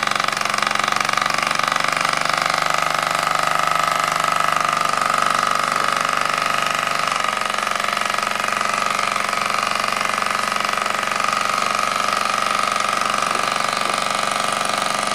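Mamod SE2A toy steam engine running steadily on steam, its single oscillating cylinder working away with a hiss of escaping steam. The piston is worn and, by the owner's account, loses steam.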